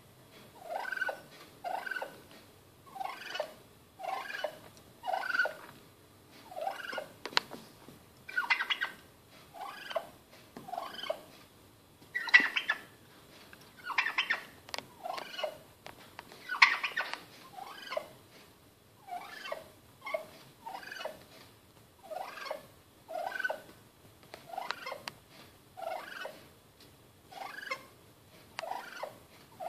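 Male turkey (tom) calling at its own reflection in a mirror: a steady run of short calls, about one a second, with a few louder calls near the middle.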